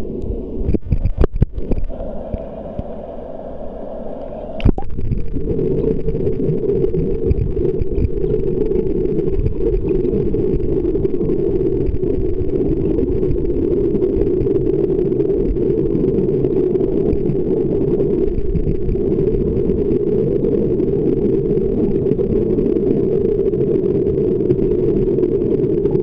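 Churning water at the foot of a waterfall heard underwater: a muffled, steady low rumble. A few irregular splashy surges in the first two seconds and a sharp click at about four and a half seconds, after which the rumble grows louder and stays steady.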